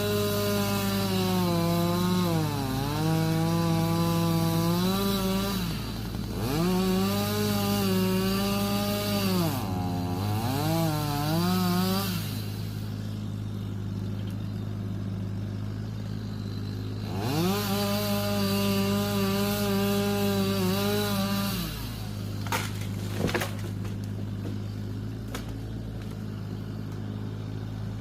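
Chainsaw running at high revs and bogging down in pitch each time it bites into the wood, three times over the first twelve seconds and again from about 17 to 21 seconds. A steady low diesel hum from the excavator runs underneath, and two sharp knocks come a little after the second cut.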